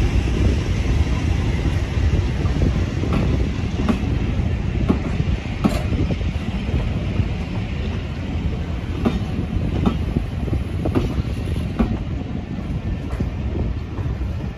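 Class 50 diesel locomotive 50033 with its English Electric 16-cylinder engine running under a train: a steady low rumble with wheels clicking over rail joints about once a second, easing slightly in loudness toward the end.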